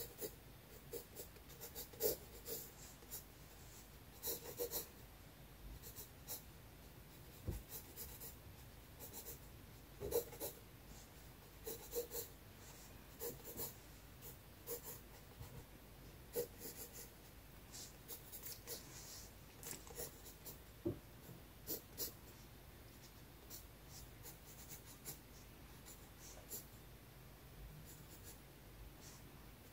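Graphite pencil drawing on sketchbook paper: short scratchy strokes in irregular clusters, with brief pauses between them.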